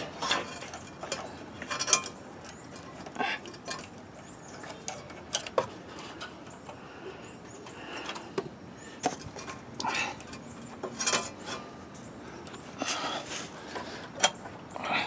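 Scattered light clicks and small metallic clinks of a screwdriver and fingers working the fuel-line hose clamp at a small engine's carburetor, a few taps every couple of seconds.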